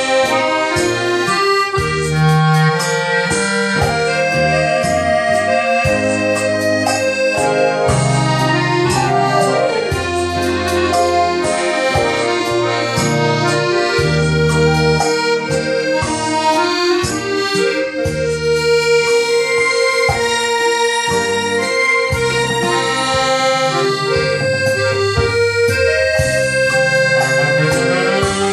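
Piano accordion and Yamaha Electone electronic organ playing a tune together, with a bass line moving underneath.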